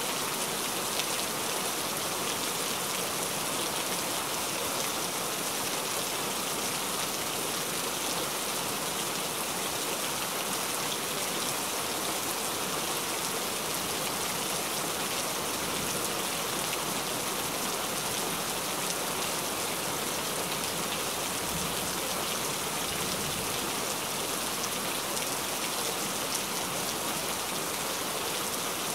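Steady rain: an even hiss of many falling drops, with fine ticks of single drops, holding the same level throughout.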